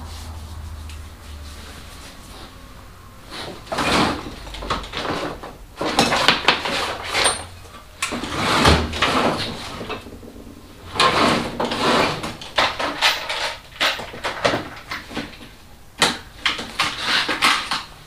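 Rummaging through tools off-camera: hard objects clattering and knocking together in several bursts, with quieter stretches between them.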